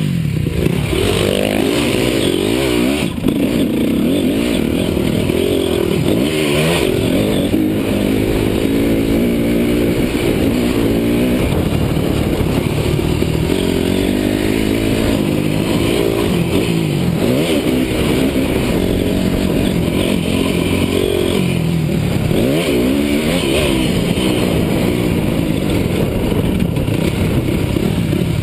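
Honda CRF250 motocross bike's single-cylinder four-stroke engine ridden hard on a dirt track, its pitch rising and dropping again and again as the throttle opens and closes, heard close up from a helmet camera.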